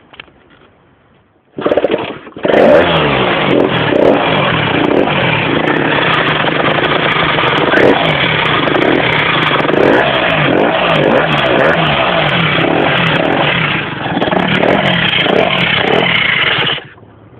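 Motorcycle engine starting up about two seconds in and running with its pitch rising and falling as it is revved, sharp ticks riding on it, then cut off suddenly near the end. The owner calls it a strange noise he cannot identify.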